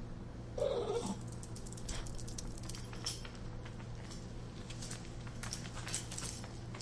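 Nervous dog giving a short whine that falls in pitch about half a second in, followed by scattered light ticks and taps, over a steady low hum.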